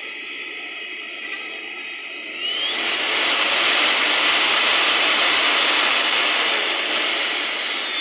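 Bosch vacuum cleaner motor running. Its whine rises sharply in pitch and loudness about two seconds in as the speed regulator is turned up, holds at full speed, then slowly falls as the speed is brought down. The repaired motor is working properly.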